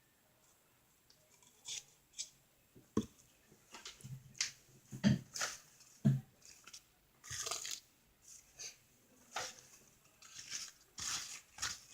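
Homemade glue-and-borax slime squeezed and kneaded by hand: irregular wet, sticky squelches and clicks, starting about a second and a half in.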